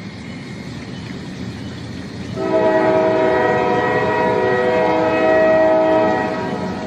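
Train rumbling and growing louder, then its horn sounds about two and a half seconds in: a long, steady blast of several tones at once. The blast eases slightly near the end but keeps sounding.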